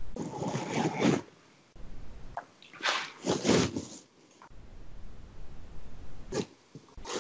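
A woman's breathy bursts of laughter: two longer bursts, about a second apart, then a couple of short sharp breaths near the end.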